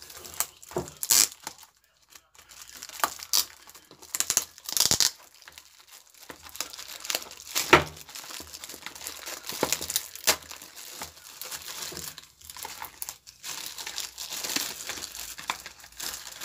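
Thin clear plastic wrapping being peeled and torn off small cardboard boxes by hand, crinkling in irregular bursts with a few sharp, loud crackles.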